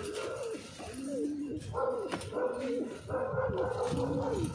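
Domestic pigeons cooing: a run of low coos, each sliding down in pitch, overlapping one another.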